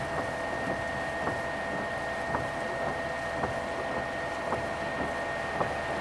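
Steady noise inside a vehicle cabin with a faint high steady whine, and a light regular click about once a second.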